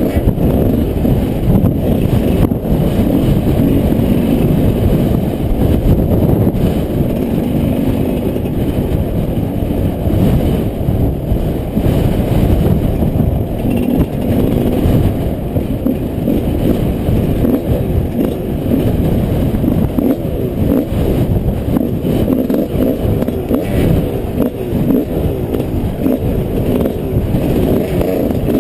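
Yamaha 125 off-road motorcycle being ridden, its engine running steadily under a dense, constant low rumble.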